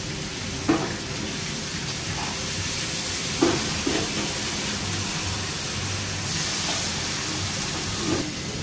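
Food frying and sizzling in pans over gas burners, with four sharp metal clanks of a ladle and spoons against the pans: one about a second in, two close together near the middle, the loudest of them, and one near the end.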